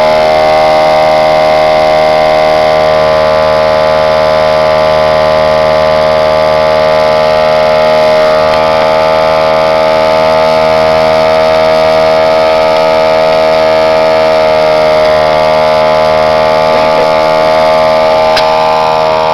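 Small electric air compressor running continuously with a loud, steady whine, pumping air through a coiled hose into a homemade pneumatic spud gun's air chamber.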